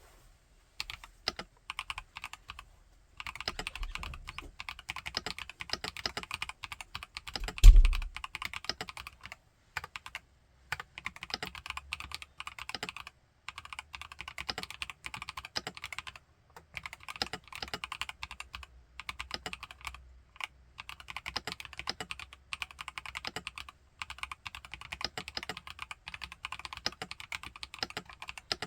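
Typing on an IQUNIX Q66 mechanical keyboard fitted with TTC Holy Panda tactile switches: bursts of hard, crisp keystrokes bottoming out, with short pauses between them. A single heavy low thump comes about eight seconds in.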